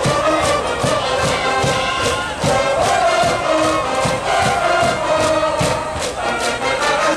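School brass band in the stands playing a baseball cheering song, with held brass notes over a steady drum beat and a crowd chanting along.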